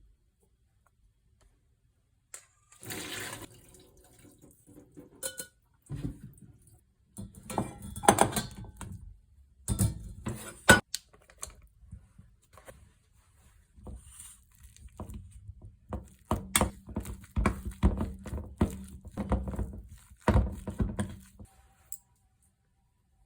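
Kitchen work: water splashing and gushing in bursts, with sharp knocks of things handled in or around a sink.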